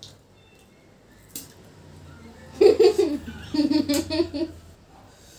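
A woman and a girl laughing together in loud, pulsing bursts for about two seconds, starting about two and a half seconds in.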